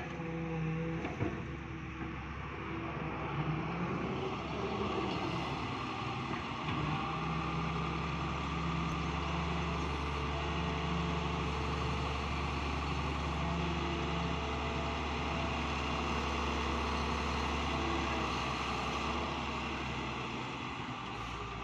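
Daewoo Solar 130 wheeled excavator's diesel engine running steadily as the machine digs and swings. Its low drone grows stronger about seven seconds in and eases near the end, with a few knocks in the first couple of seconds.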